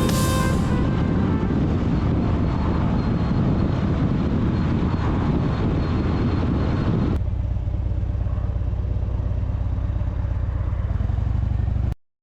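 Harley-Davidson Dyna motorcycle's V-twin engine running, mixed with wind and road noise. About seven seconds in, a sudden cut gives a steadier, deeper engine sound, which stops abruptly near the end.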